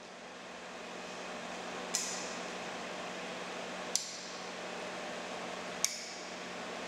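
Slide projectors running with a steady fan hum that swells up over the first second, and three sharp clicks with a brief metallic ring, about two seconds apart.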